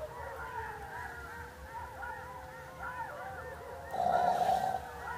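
A chorus of wild animals calling at night: many overlapping short cries that rise and fall in pitch, over a faint steady tone. A louder burst comes about four seconds in and lasts under a second.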